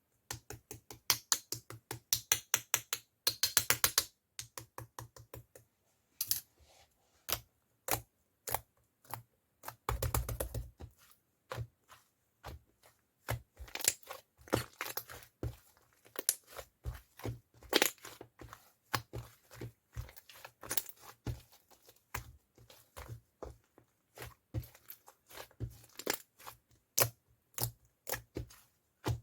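A long series of sharp clicks and taps, uneven in spacing, with quick runs of about eight a second near the start and a brief scratchy rustle about ten seconds in.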